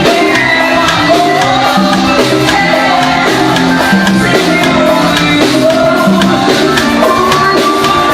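Forró music playing at a steady, loud level: a repeating bass line, a melody line and evenly spaced percussion hits keep a brisk dance rhythm.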